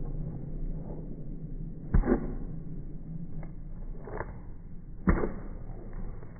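Slowed-down footsteps stomping on a wet concrete sidewalk, heard as deep, heavy thuds, the loudest about two seconds in and about five seconds in, over a low steady rumble.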